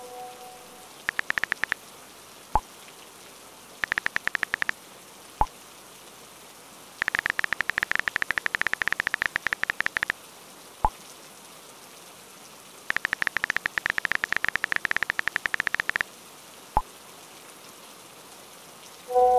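Smartphone keyboard clicks in four quick runs as chat messages are typed, each run followed by a single short pop as the message is sent. A steady rain hiss runs underneath.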